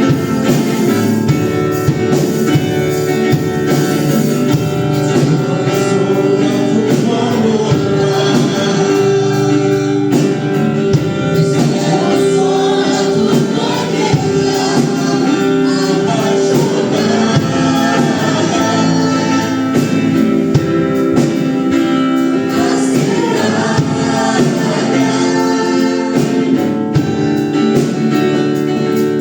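Christian worship song: voices singing over steady instrumental accompaniment.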